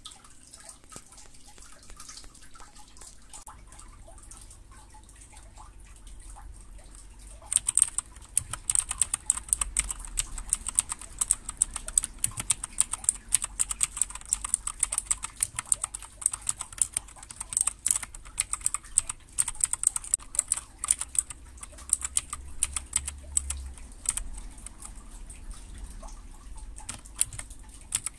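Typing on a Royal Kludge RK61 60% mechanical keyboard, a quick run of key clicks. The clicks are sparse and softer for the first several seconds, then turn into fast, dense typing from about seven seconds in.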